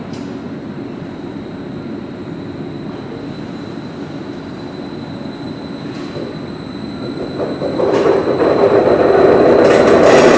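nordbahn Stadler FLIRT electric multiple unit pulling away and running past: a steady low rumble with a faint rising whine near the middle, growing much louder about eight seconds in as the front cars pass close by.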